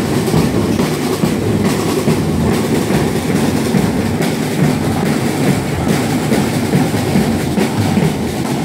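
A group of snare and bass drums beaten together in a dense, continuous rattling rhythm.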